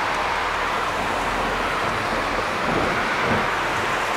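Steady, even hiss of a thunderstorm, with a brief low rumble about three seconds in.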